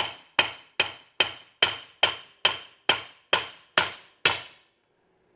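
Hammer tapping a 1/2-inch socket and extension down onto a moped's rear clutch pulley, eleven even blows about two and a half a second, each with a short metallic ring, stopping about four and a half seconds in. The tapping pushes the pulley down until the cam follower pops free.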